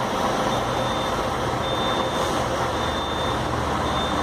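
Diesel engine of a Marcopolo tour coach running steadily at idle, close by, with a thin high electronic warning beep repeating about once a second.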